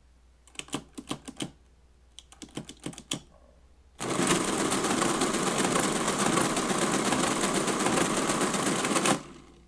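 Friden STW10 electromechanical calculator: two quick runs of key clicks as digits are pressed on its ten-key keyboard, then, about four seconds in, the motor-driven mechanism runs steadily for about five seconds while it multiplies, stopping shortly before the end.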